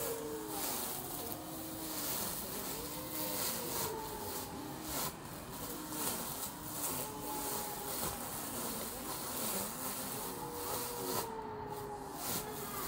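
Small handheld electric grass trimmer running as it cuts long grass, its whine rising and falling in pitch about once a second as the cutting head bites into the grass and frees up again.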